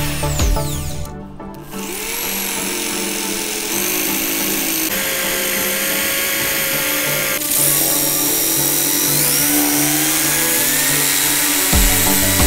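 Electric drill spinning a homemade cardboard disc, starting about two seconds in; its motor whine steps up in pitch several times. A sanding block pressed against the spinning cardboard edge adds a rough hiss. Background music plays underneath.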